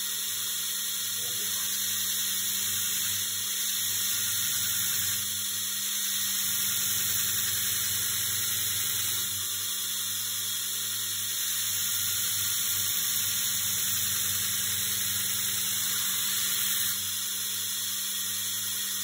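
Belt grinder with an Actirox ceramic belt grinding the bevel of a Kh12MF steel knife blade held in a jig: a steady hiss of the belt on steel over the motor's hum. It swells and eases several times, with passes of the blade.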